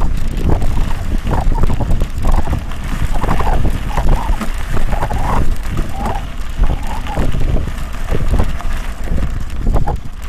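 Wind rumbling on the microphone and the rattle and knocking of a mountain bike riding fast over a bumpy dirt singletrack.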